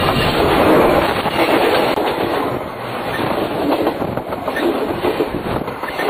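A train's cars rolling directly over a microphone set on the track between the rails: a loud rumble with the wheels clacking, the last car clearing near the end.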